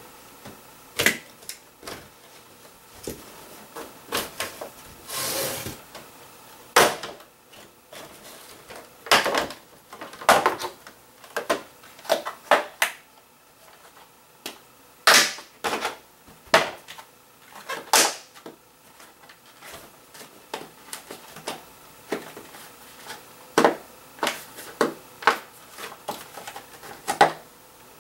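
Hard plastic toy race-track pieces clicking and clattering as they are unclipped, handled and stacked into a plastic storage crate: irregular sharp snaps and knocks, with a short scraping slide about five seconds in.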